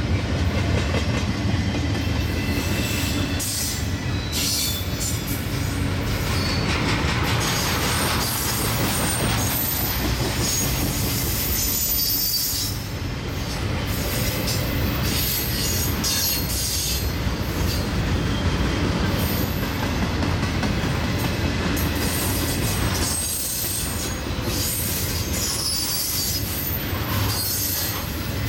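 Norfolk Southern intermodal freight train rolling into a rail yard: a steady low rumble from the train, with wheels squealing on the rails off and on.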